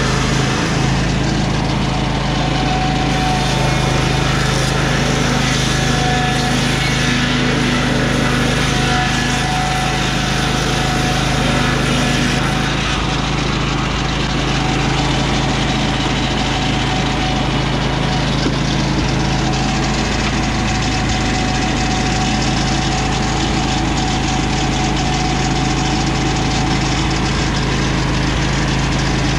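Lucas Mill 618 swing-blade sawmill, driven by its 18 hp Vanguard V-twin engine, running steadily under load as the circular blade rips a board along a lodgepole pine log.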